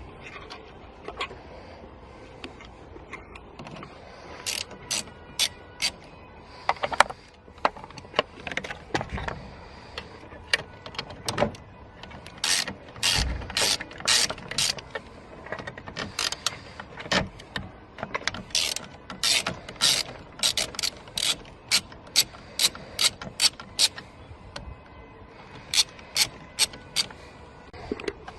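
Ratchet wrench clicking in short, quick runs of strokes, as the car battery's earth and negative cable terminals are undone.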